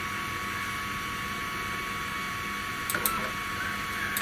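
Steady electrical whine and hum of a 3018 CNC router's powered stepper motors and drivers as the Z axis is lowered slowly onto a slip of paper to set the tool's zero. A few small clicks come about three seconds in.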